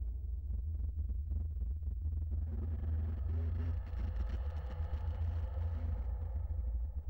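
Low, steady rumbling drone of a thriller's suspense underscore, with faint higher tones coming in near the middle.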